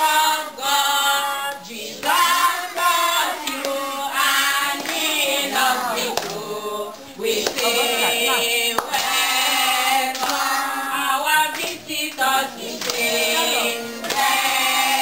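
A group of young children singing a song together, led by a woman's voice, with some hand clapping.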